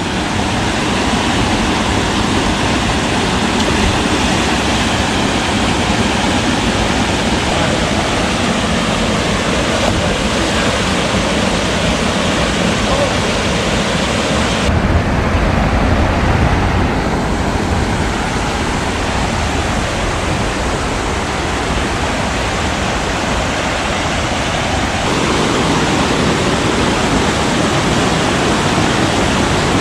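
Loud, steady rushing of a waterfall close by, an even wash of falling water. Its tone changes abruptly about halfway through and again near the end.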